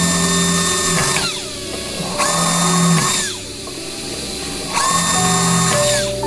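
Power drill drilling holes in a perforated sheet-metal aircraft panel: three short runs of a high whine, each winding down in pitch as the trigger is released.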